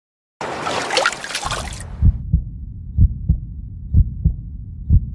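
A brief rushing whoosh, then a heartbeat sound effect: paired lub-dub thumps about once a second over a low rumble.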